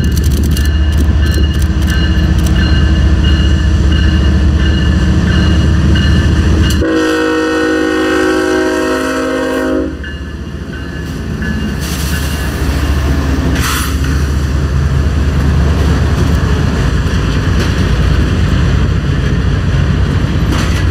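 CSX diesel locomotives pass close at speed with a heavy engine rumble. About seven seconds in, a train horn sounds a steady chord for about three seconds. Then the passenger cars roll by with a steady rush of wheel noise on the rails.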